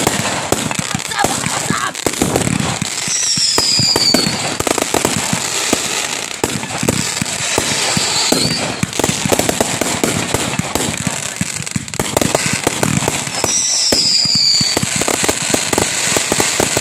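Fireworks going off at close range: a dense, continuous crackling of bursts and reports. Two short high whistles fall in pitch, about three seconds in and again about thirteen seconds in.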